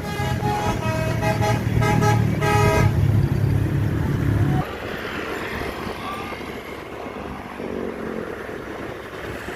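A 'telolet' multi-tone musical vehicle horn playing a quick run of stepping notes for about three seconds over a heavy engine rumble. The rumble cuts off suddenly at about four and a half seconds, leaving quieter traffic noise.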